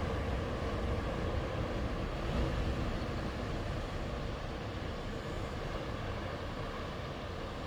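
Sea waves washing onto the shore: a steady rushing noise with a deep rumble, swelling slightly about two and a half seconds in.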